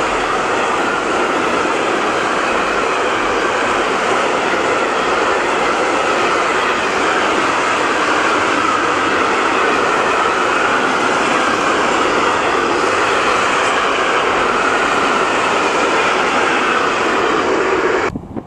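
Freight train of rail tank wagons rolling past close by: a loud, steady noise of wheels running on the rails that cuts off abruptly near the end.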